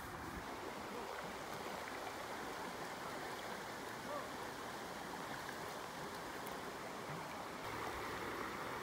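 Steady rushing and rippling of a shallow river running over rocks.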